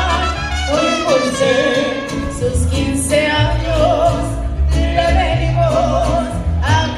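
Mariachi band playing live: a melody with strong vibrato, sung and on trumpets, over strummed guitars and a stepping bass line.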